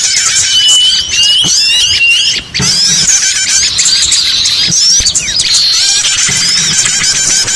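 A dense, loud chorus of small songbirds chirping and squeaking over one another, played as a lure call for small birds. One steady high whistle is held in the first two seconds, with a few short clicks among the calls.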